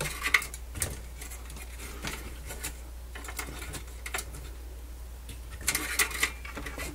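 Scattered small clicks and rattles of plastic and metal as a cassette deck's front panel and its wire connectors are handled and pulled apart, with a quick run of clicks near the end.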